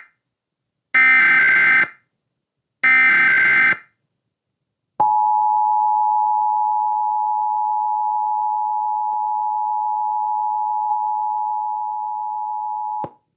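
Emergency Alert System tones: two short bursts of the SAME digital header, buzzing data chirps about a second each with a pause between. After about a second of silence comes the steady two-tone EAS attention signal, held for about eight seconds before it cuts off abruptly.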